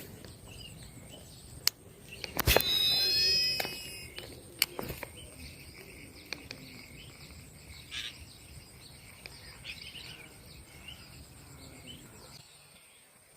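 Birds chirping over a steady high insect tone. About two and a half seconds in come a sharp click and a whirring whine of sliding pitch for about a second and a half, typical of a fishing reel's spool paying out line on a cast.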